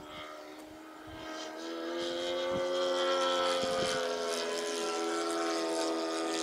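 O.S. 91 Surpass four-stroke glow engine of a radio-controlled P-51 model plane running with its propeller, growing louder about a second and a half in, then holding a steady, slightly wavering pitch.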